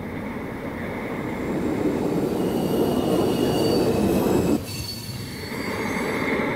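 Electric commuter train running on the rails, its rumble growing louder with high wheel squeal, then dropping suddenly about four and a half seconds in to a quieter steady rumble with a high whine.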